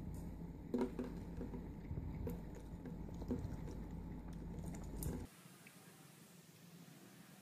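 Light taps and clicks of a cat's paw against a plastic water bottle over a low steady hum, with a brief cat vocalization about a second in. After about five seconds the sound drops suddenly to faint room tone.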